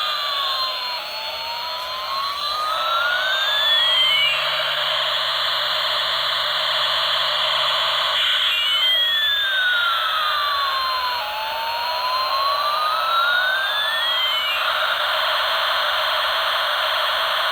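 Electronic airplane sound effect from a battery-operated light-flash toy aeroplane: a steady jet-like hiss with a siren-like tone that slowly slides down and back up while another slides up and back down, the cycle repeating about every six seconds.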